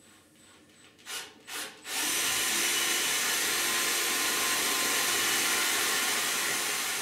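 Angle drill fitted with a shortened bit: two brief blips of the trigger, then it runs steadily while drilling from about two seconds in.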